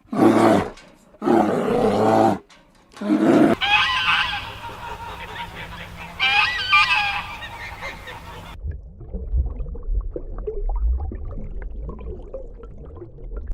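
A series of loud animal calls, several in a row, each with a clear pitch. After about eight and a half seconds they give way to a low rumbling noise.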